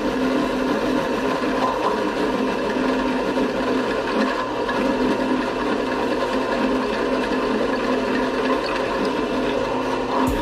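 Drill press running steadily, its bit drilling out the rivets of a steel V8 engine-mount clamshell.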